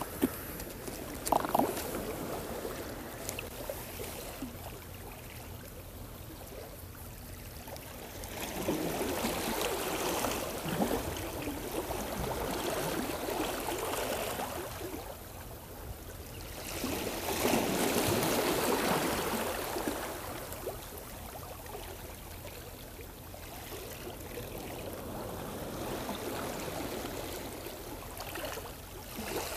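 Small waves washing against a stone seawall, swelling into two long surges partway through. A couple of sharp knocks about a second and a half in.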